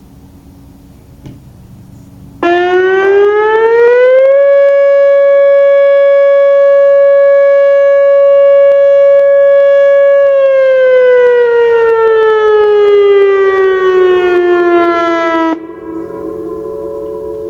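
Whelen 2805 electronic outdoor warning siren sounding its test tone. It starts suddenly a couple of seconds in, rises in pitch for about two seconds, holds a steady tone for about six seconds, then slowly falls in pitch. It cuts off abruptly near the end, leaving a fainter echo of the tone that keeps sliding down.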